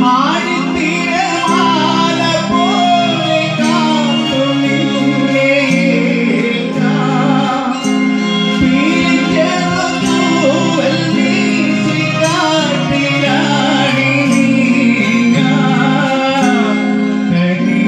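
Live band music through a stage PA: a gliding, bending melody over steady sustained chords, played without a break by a small band with tabla, drum kit and keyboard.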